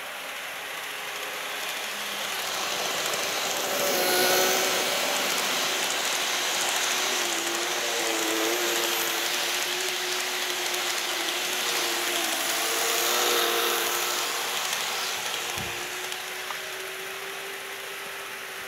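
KATO N-gauge model trains running past on the track, their motors humming over the rattle of wheels on the rails. The sound builds, is loudest about four seconds in and again around thirteen seconds, then fades.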